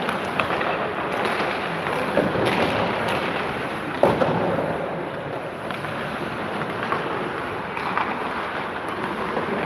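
Busy indoor ice-rink din: a steady echoing rumble with skates on the ice and sharp clacks of hockey sticks and pucks, the loudest about four seconds in.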